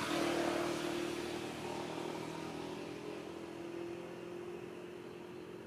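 A vehicle engine droning steadily and growing fainter, as if moving away.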